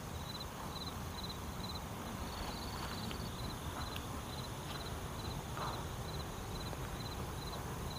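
A cricket chirping in a steady rhythm of about two high chirps a second, over a low steady rumble.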